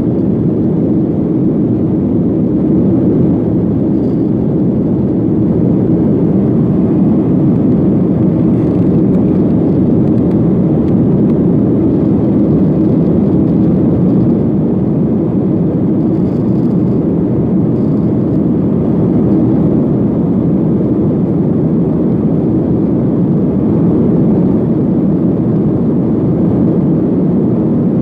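Steady cabin noise of a Boeing 737-500 climbing out after takeoff: its CFM56-3 turbofan engines and the airflow over the fuselage, heard from inside the cabin as an even low rumble.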